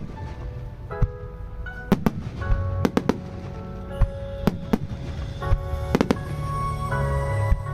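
Starmine fireworks bursting in quick succession: a dozen or so sharp bangs at uneven intervals, over the music that accompanies the display.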